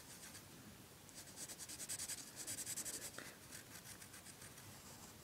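Pencil scratching on paper in quick short strokes, faint, mostly from about one to three seconds in.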